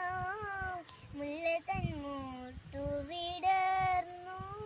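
A young girl singing solo, with sliding phrases and long held notes and a short break about a second in.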